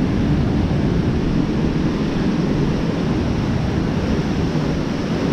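Steady ocean surf with wind buffeting the microphone, an unbroken low noise with no distinct events.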